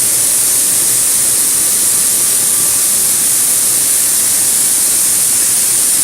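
Mini flour milling machine running: a loud, steady hissing rush that does not change.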